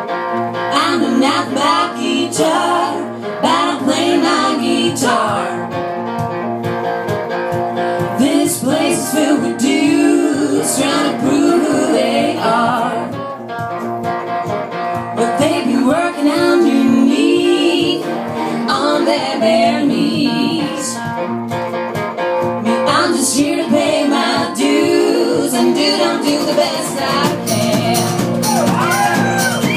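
Live band music: female voices singing over an acoustic guitar, a banjo and an upright double bass, in a country-blues style.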